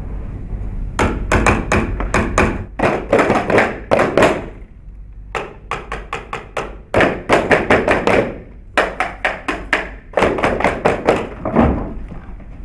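Rhythmic percussion: quick runs of sharp thumps and taps, several strokes a second, in about six bursts separated by short pauses.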